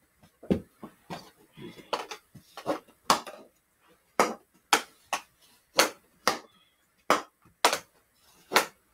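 Hockey stick blade knocking against a small stickhandling ball, which is passed off a wall and caught on the forehand: a string of sharp clacks and taps at an uneven pace, some coming in quick pairs.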